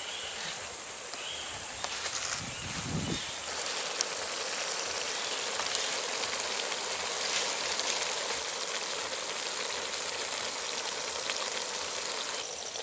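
Open wood fire crackling under a pot of simmering greens, a steady hiss with small crackles and a steady high tone throughout. A brief low rumble about three seconds in.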